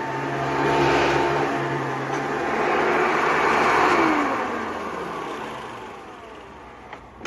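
Hoover Turbopower 3500 upright vacuum cleaner running, its level swelling and fading. About four seconds in it is switched off, and the motor winds down with a falling whine that dies away over the next few seconds.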